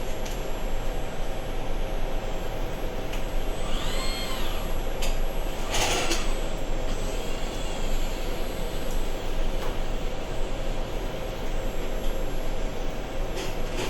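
Automated machining setup running: a steady mechanical noise with a few sharp clicks, two brief whines that rise and fall about four and seven seconds in, and a short hiss about six seconds in.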